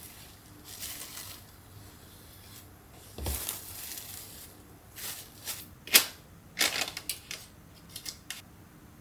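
Kitchen food-prep handling sounds: rustling and crinkling, a dull thump about a third of the way in, then a run of sharp clicks and taps.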